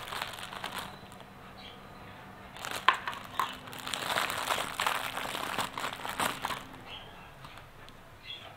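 Thin clear plastic packaging bag crinkling and rustling as hands open it and pull out plastic pinwheel parts, in irregular bursts that are busiest through the middle and die down near the end.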